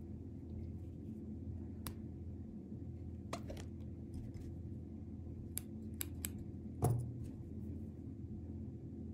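Steady low hum with a handful of soft clicks and taps from fingers handling a needle and thread while making needle lace; the loudest is a thump about seven seconds in.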